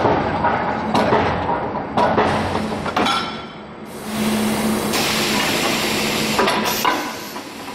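Servo-motor electric screw press striking the die four times, about once a second. Then, about four seconds in, a steady spray hisses across the opened die for a couple of seconds, with a few clicks near the end.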